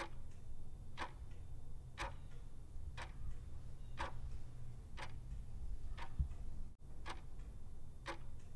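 Clock-ticking sound effect of a quiz countdown timer, one tick a second, over a low steady hum, with a brief break about two-thirds of the way through.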